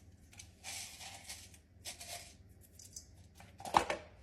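Kitchen handling sounds as sea salt goes into a bowl of coconut milk and onion: a few short rasping noises, then a sharp knock near the end.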